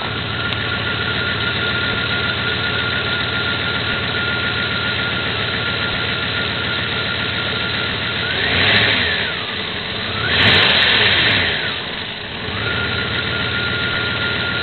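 1994 Jeep Grand Cherokee's 5.2-litre (318) V8 idling rough, with two brief rises in engine speed about nine and eleven seconds in. It is the rough running of an engine that stalls in damp weather, which the owner traced to a gunked-up throttle body and leaking intake manifold and plenum pan gaskets.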